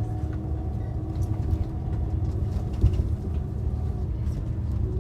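Steady low rumble of a vehicle in motion, heard from inside, with a constant motor hum and a single brief thump a little before three seconds in.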